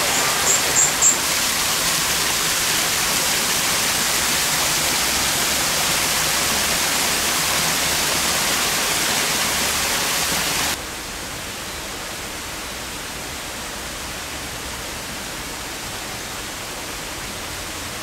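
Small rock waterfall splashing, a steady rushing hiss, with three short high chirps about a second in. About eleven seconds in, the hiss drops abruptly to a quieter level and stays steady.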